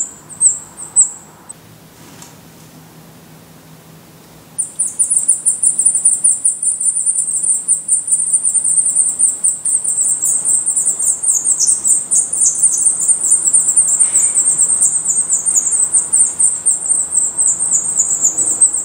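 Black redstart nestlings begging for food from a parent at the nest: a rapid stream of very high, thin calls. It breaks off about a second and a half in, then starts again at about four and a half seconds and keeps going.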